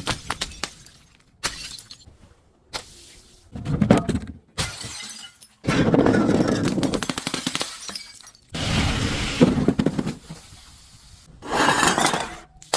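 Glass bottles breaking and being crushed, crunching and shattering in about six separate bursts, the longest lasting two seconds or more.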